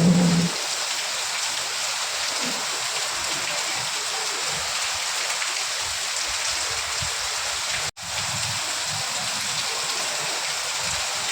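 Steady rain, an even hiss. A short, louder low hum sounds at the very start, and the sound cuts out for an instant about eight seconds in.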